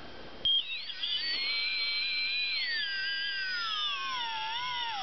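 E-flite Park 300 brushless outrunner motor spinning up after a click about half a second in, with a high electronic whine of several tones. The pitch sinks slowly over the last seconds as the motor is slowed under load by a hand gripping its bell.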